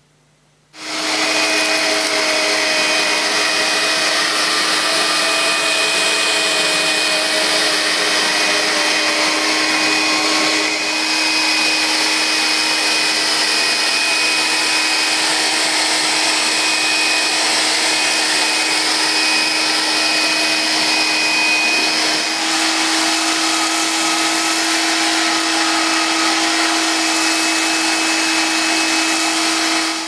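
Vax Air Cordless upright vacuum cleaner running on its battery, its motor humming steadily as it picks up scattered grains and dust from a tiled floor. The pitch of the hum steps slightly higher about two-thirds of the way through.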